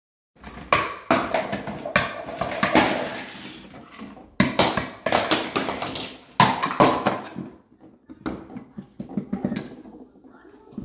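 A baby banging a spoon and toy dishes at a play kitchen: a run of sharp knocks and clatter, with the hardest hits in the first seven seconds and lighter rattling after.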